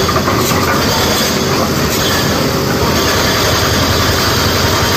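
SANY SY225 hydraulic excavator working: its diesel engine runs steadily under load while the bucket scrapes and clatters through broken rock.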